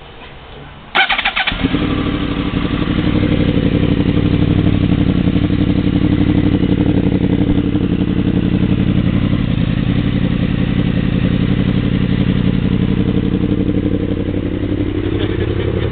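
2009 Yamaha YZF-R1 crossplane inline-four being started about a second in, catching almost at once, then idling loud and steady through homemade straight-through mufflers in its underseat exhaust. Near the end the idle sags and picks up again.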